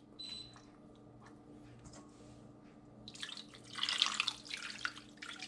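Liquid marinade sloshing and splashing for about two seconds, starting about three seconds in, as the marinated chicken legs are poured or moved in a pot, with a faint click near the start.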